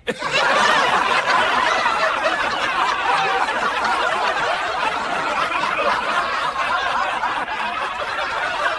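Crowd laughter, many people laughing at once in a steady, unbroken wash, as at the punchline of a joke.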